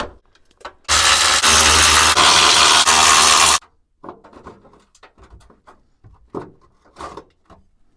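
Cordless impact wrench runs loudly for nearly three seconds, about a second in, undoing a bolt on an exhaust retaining bracket. Light metal clicks and knocks follow as the loosened bracket is handled.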